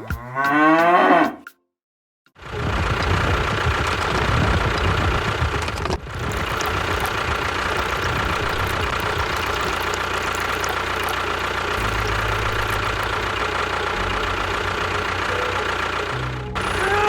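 A cow mooing for about a second and a half. After a short silence comes a steady engine-like machine noise with a low hum, which runs on with a brief break about six seconds in.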